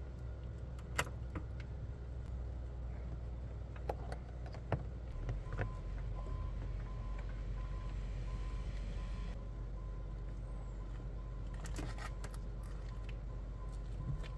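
Steady low drone of a tractor engine running in the background, with scattered light clicks and rustles as a coax cable is pushed under a rubber door seal.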